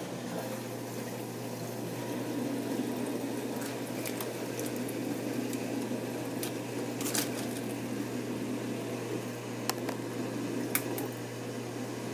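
Water bubbling and churning in a bucket of live crabs over a steady low electric hum, with a few sharp clicks scattered through.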